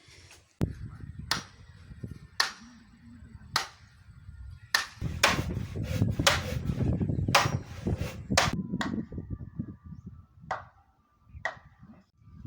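A hoe striking into soil again and again, about a dozen sharp chops at roughly one a second, while the ground is worked into planting mounds. A low rumbling noise runs underneath.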